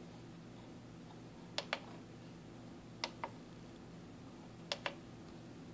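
Tactile push buttons on an FG-100 DDS function generator's front panel clicking three times, each press a quick double click, while the waveform menu is stepped through.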